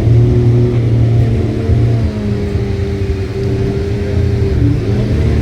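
A car running steadily near the microphone: a loud low rumble with a steady hum that shifts slightly in pitch, without a clear rev.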